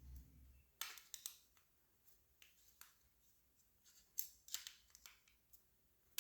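Faint, irregular clicks and light clacks of paintball-marker parts being handled and taken apart, about ten sharp ticks spread unevenly, with a brief low handling bump at the very start.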